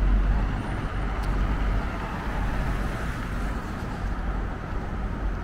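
Road traffic: a motor vehicle passing close by, its low rumble fading about half a second in, leaving a steady hiss of traffic.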